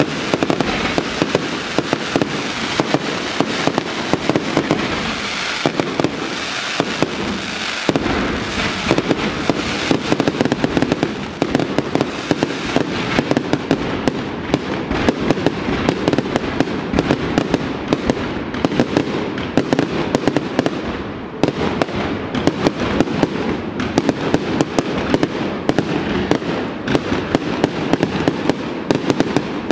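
Aerial fireworks display: a continuous, dense run of shell bursts and sharp crackling bangs, many per second and overlapping throughout.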